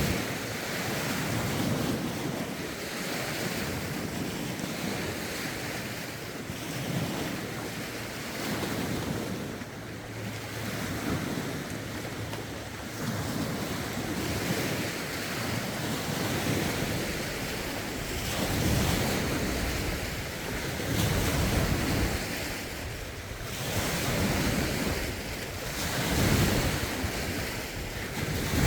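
Lake waves washing in one after another in a rough wind, with gusts buffeting the microphone and swelling in low rumbles every few seconds.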